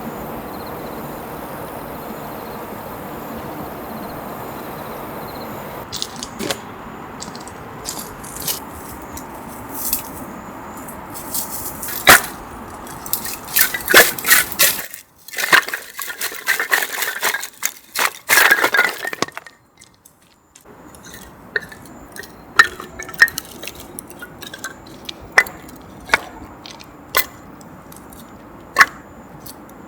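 Light clinks, clicks and knocks of small objects being handled, thickest for several seconds in the middle, after a steady hiss at the start.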